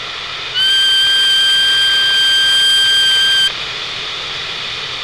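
Radio receiver hiss with a steady, high whistle-like tone that starts about half a second in and cuts off suddenly after about three seconds.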